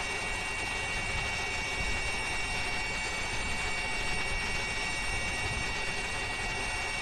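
Helicopter engine and rotor noise: a steady rushing drone with a few high, constant whining tones over it.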